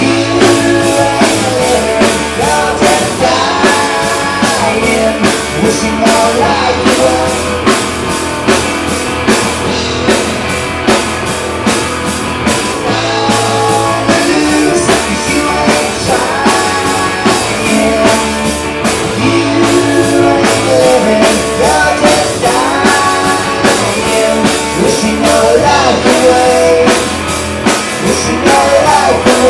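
Rock band playing live: electric guitar, bass guitar and drum kit, with a lead vocal sung over it.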